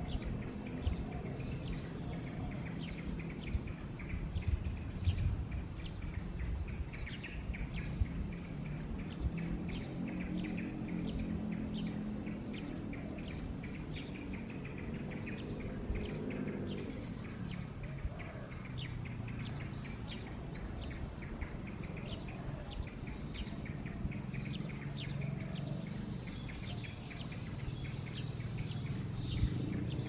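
Many short, high bird chirps and twitters over a steady low rumble.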